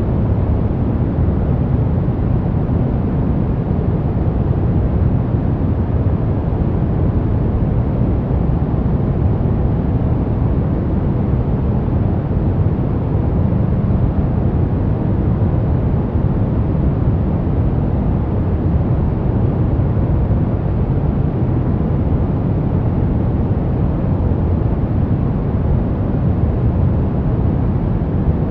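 Steady, unbroken synthetic noise from a sleep track sold as white noise. Its weight sits low, so it sounds like a deep, even rush with little hiss on top, closer to brown noise.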